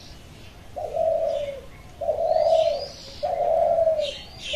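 A dove cooing, a long low note repeated about every second and a quarter, with faint high chirps of small birds between the coos.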